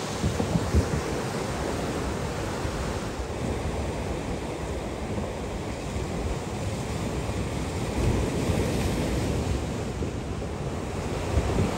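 Rough storm sea: heavy surf surging and breaking against harbour sea walls and rocks, with gusting wind buffeting the microphone.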